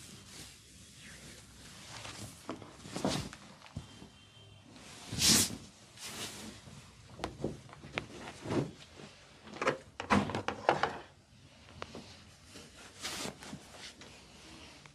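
Hands working on a person's head during a head massage: about a dozen irregular slaps, taps and rubbing strokes, the loudest about five seconds in.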